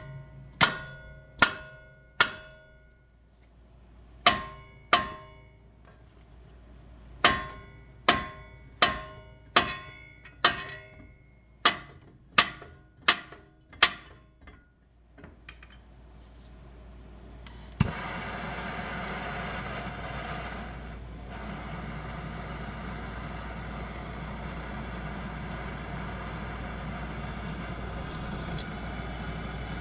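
A hammer striking steel suspension parts, about fourteen ringing metal blows in irregular groups, knocking loose a stuck part while removing the Subaru Impreza's lower control arm. After the blows stop, a steady whirring hum takes over.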